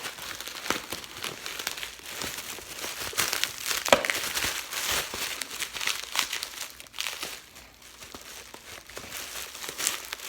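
Plastic bubble wrap crinkling and rustling as a package is cut open and unwrapped by hand, with many small crackles and one sharper click about four seconds in.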